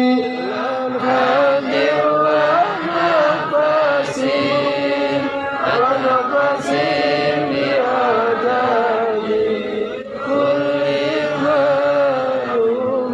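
A man singing sholawat, Arabic devotional praise of the Prophet Muhammad, in long, slowly bending held notes.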